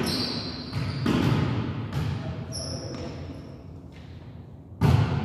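Sharp thuds of a volleyball being hit and bounced on a gymnasium court, the loudest about a second in and near the end, each followed by echo from the hall.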